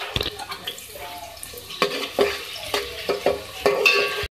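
A spoon stirring sliced onions in hot oil in a metal cooking pot, scraping and knocking against the pot over a light sizzle of frying. The sound stops abruptly near the end.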